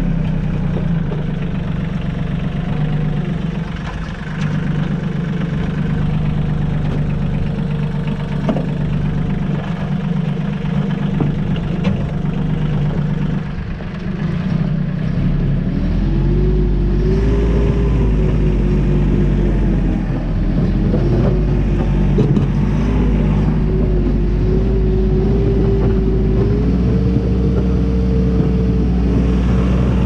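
Compact tractor engine running steadily while working. About halfway through its pitch rises and holds higher, as if throttled up or put under load.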